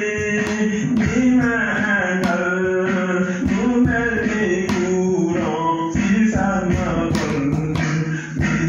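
Music: a song with a singing voice over instruments and a regular beat.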